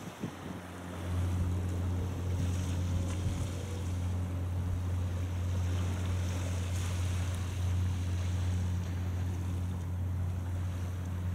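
Steady low drone of a boat's engine carrying across the water, coming up about a second in, with wind on the microphone and a few short knocks at the very start.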